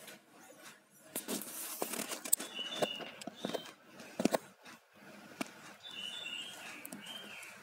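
Faint bird chirps, heard twice in short runs, over scattered clicks and rustling.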